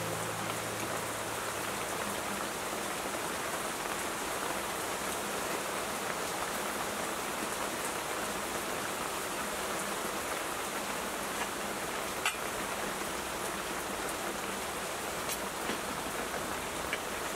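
Steady rain falling, an even hiss throughout, with a few faint clicks of dishes being set down on a table.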